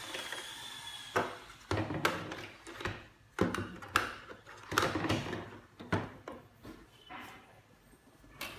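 Plastic parts of a toy foam-dart blaster being handled and fitted together: a series of irregular sharp clicks and knocks with rustling handling in between.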